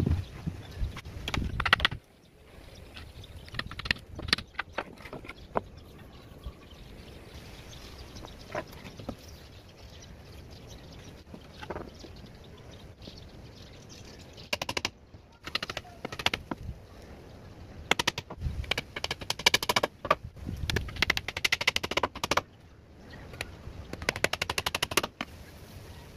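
Hammer driving nails into a marine plywood drawer box, in bursts of rapid strikes separated by pauses, with lighter knocks of the plywood panels being handled.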